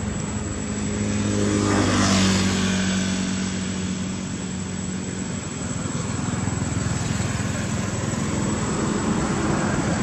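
A motor engine droning steadily, growing louder to its peak about two seconds in and then running on at a slightly lower level.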